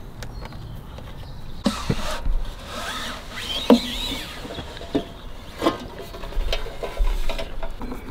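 Plastic casing of a wall-mounted EV charger being unscrewed and pried off by hand: rubbing and scraping of hard plastic with scattered sharp clicks and snaps, the loudest snap about three and a half seconds in.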